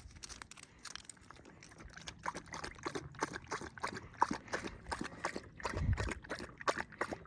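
A dog lapping water, a quick, irregular run of wet laps and splashes, several a second.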